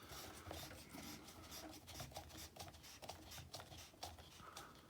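Faint rubbing and scattered small clicks: light handling noise.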